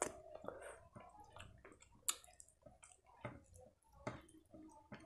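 Close-miked eating sounds: faint, irregular wet clicks and squishes of chewing, and of fingers mixing rice with curry on a plate.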